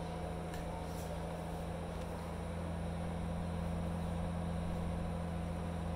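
A steady, unchanging low hum, like a motor or machine running, with a couple of faint clicks about a second in.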